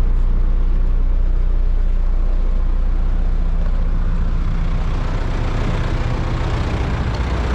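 A heavy vehicle's engine idling with a steady low hum, and a hiss of noise building from about four seconds in.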